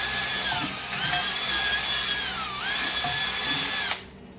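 Electric drill whining as it scrubs dirt and rust off the face of an old steel wheel, with a scratchy hiss under the motor. The motor's pitch sags twice as it is pressed into the work, and the drill stops just before the end.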